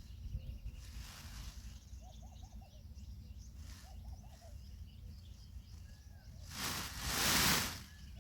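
Birds calling against a low steady rumble: faint high chirps, and twice a short run of about four quick low notes. Near the end a loud rushing noise swells and fades over about a second.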